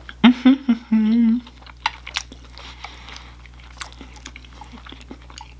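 Close-miked chewing of food: wet mouth clicks and smacks, with a short voiced hum in the first second or so.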